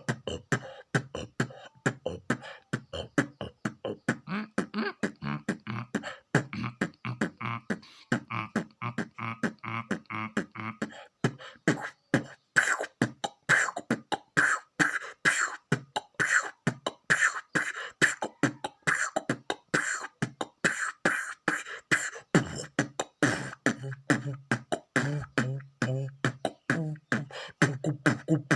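Vocal beatboxing imitating a drum kit: a fast, steady rhythm of mouth-made kick, snare and hi-hat strokes, several a second, with a hummed low note under parts of it.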